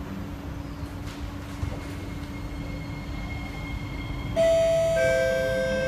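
SMRT C151A metro train running in the tunnel, a steady low rumble heard inside the car. About four seconds in, a cluster of steady whining tones from the traction inverter and motors cuts in suddenly and grows louder, a few of them bending slightly in pitch.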